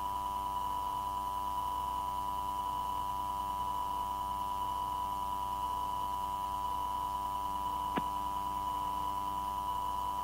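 Steady electrical hum with a strong high tone on an air traffic control tower radio recording, with no speech on the channel. A single faint click comes about eight seconds in.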